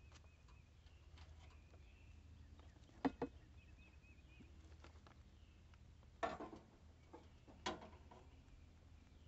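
Metal clanks and knocks from a steel mower blade and its mounting parts being handled against the underside of a riding mower's cutting deck while the blade is refitted to its spindle: two quick knocks about three seconds in, a longer rattling clank about six seconds in, and a single knock a second and a half later.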